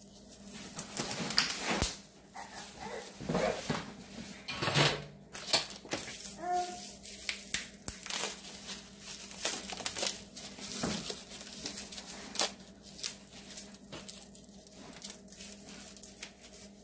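Plastic packaging crinkling and rustling as the parts of a new deep fryer are unwrapped and handled, with irregular light clicks from the wire-mesh fry baskets being moved.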